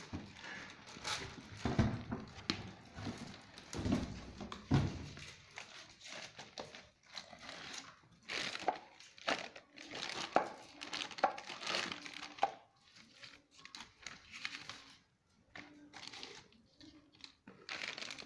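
Plastic packaging crinkling and rustling as it is handled and pulled off a new juicer mixer grinder, in irregular crackly bursts, with a few dull handling knocks in the first few seconds.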